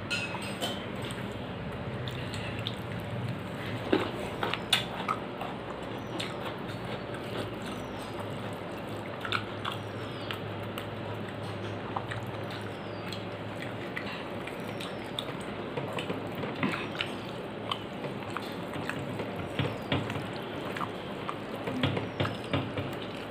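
Eating by hand: soft wet chewing and mouth clicks, and fingers mixing rice and dal on a plate, heard as scattered short clicks and smacks over a steady background hiss.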